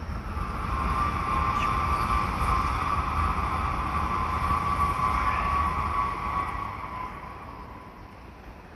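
Sotetsu electric commuter train running into the station with a low rumble and a steady high-pitched squeal. The sound fades over the last couple of seconds.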